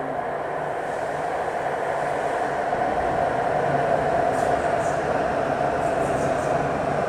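Foshan Metro Line 3 train pulling into an underground station: a steady rush of wheels on rail and running gear that grows louder as it arrives, loudest about four seconds in as the cars pass close by.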